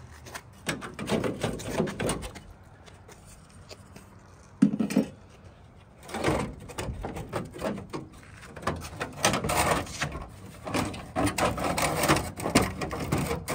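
Hand tools clinking and rattling against metal as bolts on the car's front end are worked on. There is a single louder knock about four and a half seconds in, and the clicking grows dense in the second half.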